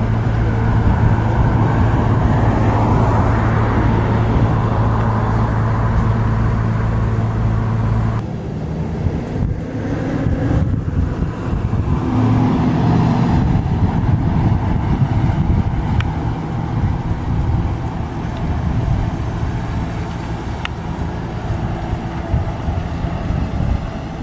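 A steady low engine hum for about the first eight seconds, which stops abruptly. Then road noise as a Mercedes-Benz Sprinter van drives out of a lot and along the road, with other traffic passing.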